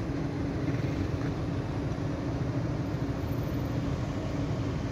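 Steady low rumble of road vehicle engines, with a steady hum over it.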